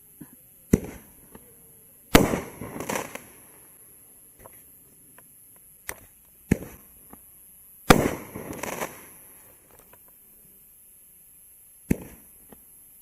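Winda P-W518A crackling mortar shells being fired one after another: each sharp launch bang is followed about a second and a half later by a louder break that trails off into about a second of crackling.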